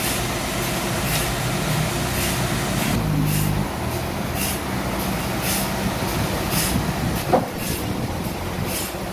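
Forklift's diesel engine running steadily, its pitch shifting briefly about three seconds in. A short sharp sound stands out about seven seconds in.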